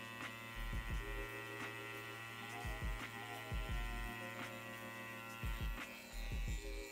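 BRONC Magic wireless rotary tattoo pen running at about 8 volts, a steady buzzing hum, as its 9-round liner needle lines into practice silicone. Several brief low thumps come through the hum.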